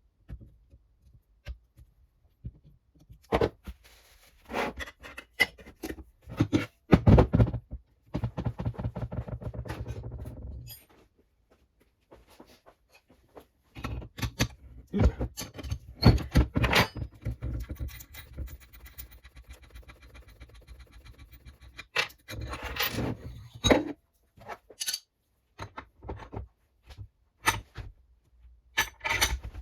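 Small steel suspension parts and tools clinking, knocking and scraping on a workbench as they are handled, cleaned and greased, with a few longer stretches of steady scraping or rubbing.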